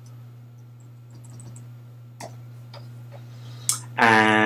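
Faint, sparse keystrokes on a computer keyboard as a web address is typed, over a steady low electrical hum. A man's voice begins near the end.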